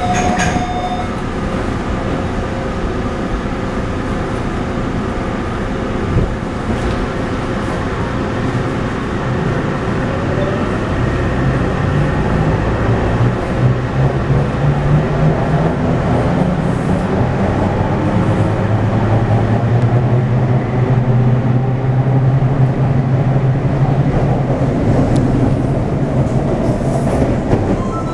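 Taipei Metro C301 train with retrofitted propulsion running on the rails: a steady rumble with the whine of its inverter and traction motors. Short stepped high tones come in the first second, and a low hum grows stronger from about twelve seconds in. The uploader calls this inverter sound abnormal.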